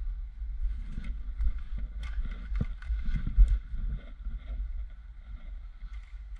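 Footsteps and rustling through dry grass and leaf litter with gear and clothing brushing, over a low rumble of wind on the helmet-camera microphone; a few sharp knocks, the loudest a little past three seconds in.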